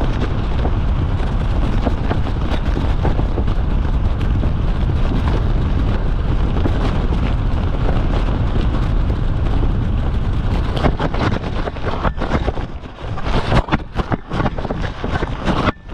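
Wind rushing over the microphone on a descending paraglider, a steady low rumbling noise that turns gusty and uneven about eleven seconds in as the pilot comes in to land.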